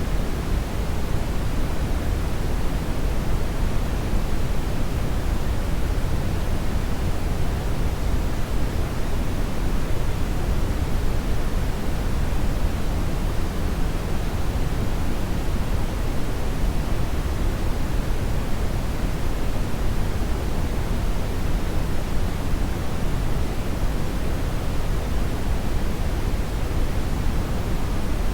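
Hair dryer blowing continuously: a steady, unchanging rush of air, heaviest in the low end, with no audible motor whine or change in speed.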